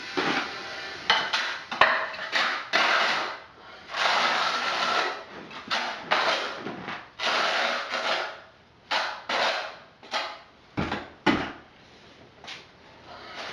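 Steel trowel scraping thinset mortar in a series of short, irregular strokes, some with a metallic clink.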